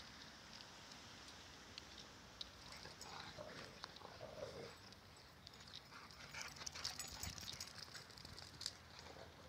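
Two dogs playing chase, heard faintly: a brief whine about three to four seconds in, and scattered light clicks and scuffs that thicken near the end.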